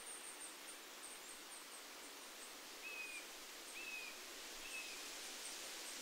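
Wind rustling the leaves of woodland trees, a steady soft hiss. A bird gives three short down-slurred whistles about a second apart in the middle, and a run of very high, thin notes sounds through the first half.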